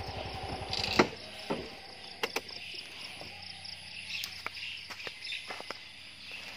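A small motorcycle engine idling, cut off about a second in with a sharp click, the loudest sound. Then crickets chirp steadily, with scattered sharp clicks and rustles of footsteps through grass.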